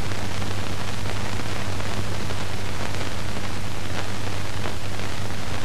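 Steady hiss with a constant low hum from an old film soundtrack; nothing else is heard.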